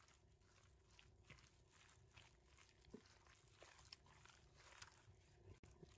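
Near silence, broken by a few faint, short wet squelches of a gloved hand kneading raw chicken pieces in a thick spice marinade.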